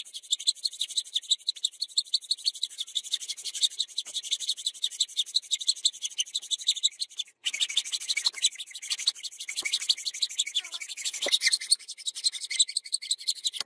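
Hacksaw cutting through a block of hardwood in quick, even back-and-forth strokes, a steady scratchy rasp, broken by one brief gap about halfway.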